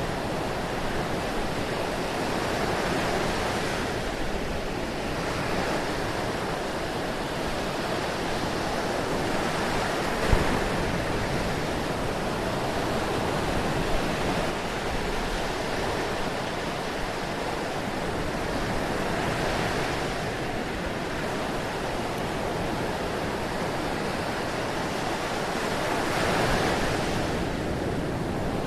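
Ocean surf: a continuous rush of breaking waves that swells and eases every several seconds. A brief thump comes about ten seconds in and another around fourteen seconds.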